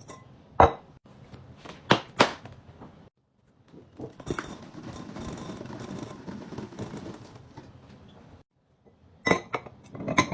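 Kitchenware clinking and knocking as it is picked up and set down, in sharp single knocks. A few seconds of steady rustling come in the middle, and a quick cluster of clinks comes near the end.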